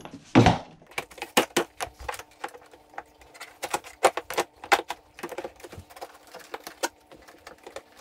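Irregular clicks and clatter of hard plastic parts being handled and pushed into place on a children's ride-on toy car.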